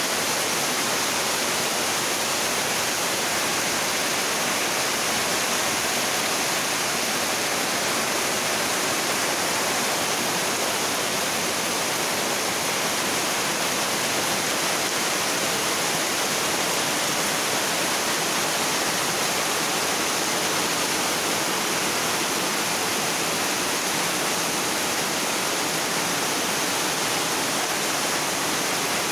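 Heavy tropical-storm rain pouring down steadily: an even, unbroken hiss of rain on foliage, ground and a corrugated metal roof.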